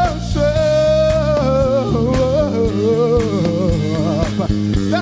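Gospel worship music from a live praise band: a singer holding long notes with slides and runs between them over steady bass and a regular drum beat.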